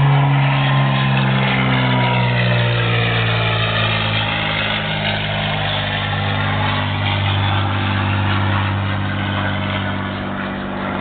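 An engine running steadily, its pitch falling over the first couple of seconds and then holding.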